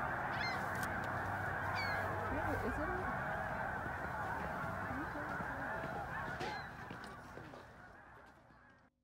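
A huge flock of snow geese calling all at once: a dense, unbroken din of honking that fades out over the last two seconds or so.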